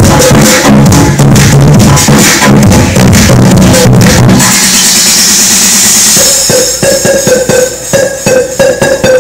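Very loud electronic dance music blasting from a competition sound system, with a heavy bass beat. About four and a half seconds in the bass drops out into a hissing sweep. Around six and a half seconds a new clicking beat starts under a held high note.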